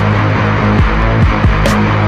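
Music: a loud, dense track with heavy sustained bass notes and a bright drum or cymbal hit at the start and another about a second and a half later.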